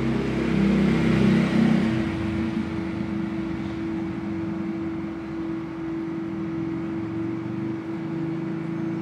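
A steady motor-like hum holding one constant tone, with a lower drone that is loudest in the first two seconds and swells again near the end.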